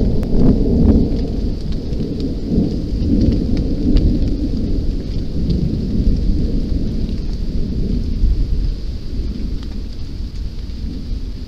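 Thunder rumbling, loudest at the start and dying away slowly over several seconds.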